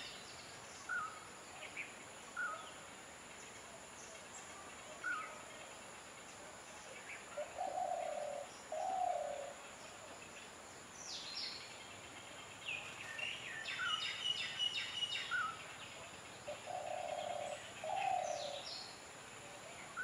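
Birds calling outdoors: scattered short chirps and whistles, busier in the second half, with two pairs of low coos about eight and seventeen seconds in.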